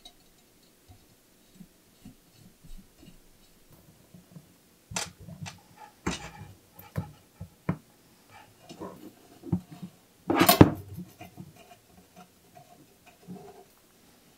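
Bicycle parts and hand tools handled on a workbench: scattered clicks and knocks, with a short, loud noisy burst about ten and a half seconds in.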